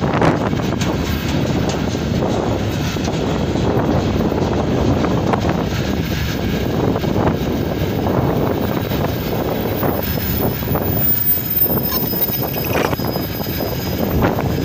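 Freight train rolling past, with a steady loud rumble of wagons on the rails, mixed with strong wind buffeting the microphone.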